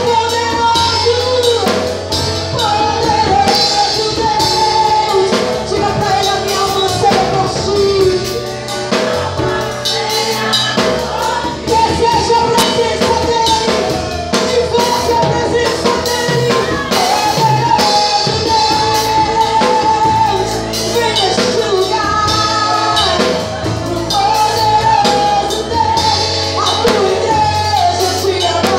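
Drum kit and electronic keyboard playing live together: a steady drum beat with cymbals under a melody line.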